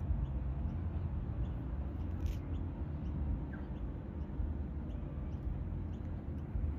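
Outdoor ambience: a steady low rumble, with faint, short, high bird chirps now and then.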